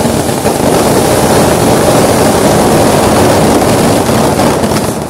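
Many fireworks going off together, a loud, dense, continuous rushing crackle, with a few sharper cracks near the end.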